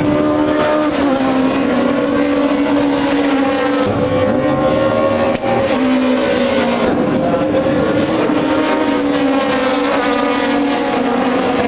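Several BTCC touring cars racing past at high revs, their engine notes overlapping and rising and falling as they pass and change gear.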